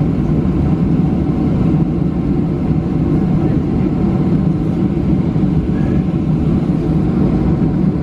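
Cabin noise of a Boeing 737-700 taxiing, heard over the wing: a steady low rumble from the jet engines at taxi power and the wheels rolling on the taxiway.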